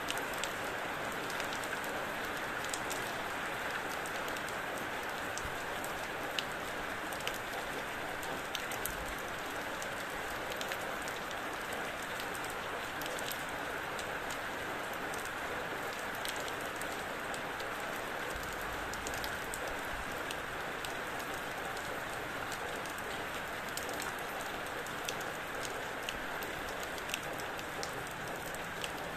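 Steady rain falling, a continuous even hiss with scattered sharper ticks of single drops.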